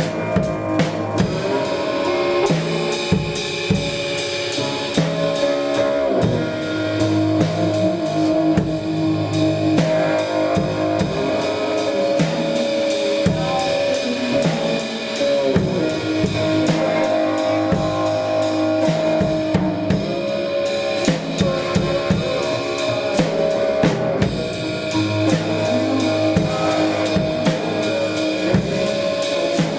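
Blues jam band playing an instrumental passage: a drum kit with bass drum and snare keeps a steady beat under guitar.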